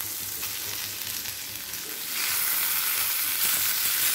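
Marinated tandoori chicken pieces sizzling in oil in a cast-iron kadai while a piece is turned over with a spatula; the sizzle grows louder about two seconds in.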